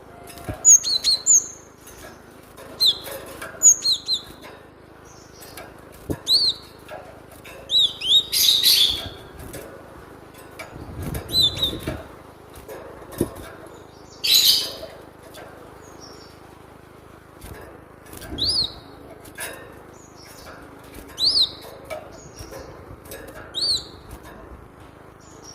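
Cinereous tit (glatik batu) calling: short, sharp sweeping chirps repeated every second or two, with two louder, harsher bursts in the middle.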